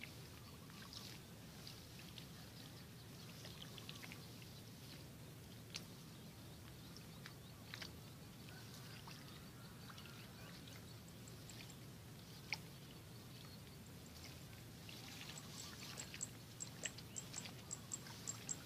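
Faint rustling and wet handling sounds of rice-paddy weeds being pulled by hand among the rice plants, with scattered light clicks. Toward the end comes a quick run of high ticks, several a second.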